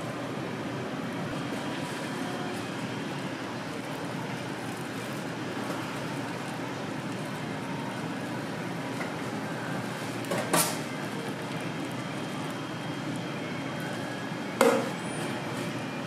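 Steady whooshing noise of a street-food kitchen's fans and griddle, broken by two sharp metal utensil knocks about four seconds apart, each with a brief ring.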